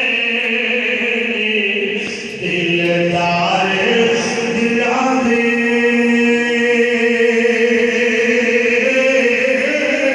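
A voice chanting in long, held melodic notes that shift in pitch every few seconds, amplified through a hall's loudspeakers.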